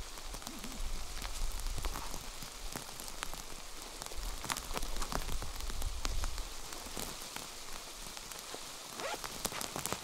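Rain pattering on a surface: many separate drop ticks over a steady hiss.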